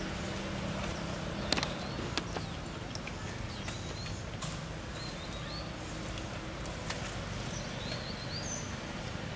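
Outdoor ambience: a steady background hum and hiss with scattered short, high chirps and a few sharp clicks.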